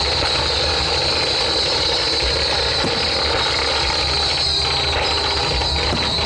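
Fireworks display: a dense, continuous barrage of bursts and crackling that run together into a steady din without a break.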